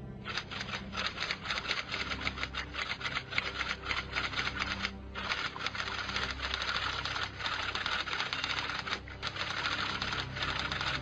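Typewriter sound effect: rapid, continuous key clatter that keeps time with text being typed out, with a brief break about 5 seconds in.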